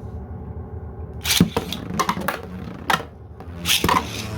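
3D-printed plastic Beyblade spinning tops colliding in a stadium: a run of sharp clacks, the loudest about a second and a half in and a cluster near the end, over a steady low whir.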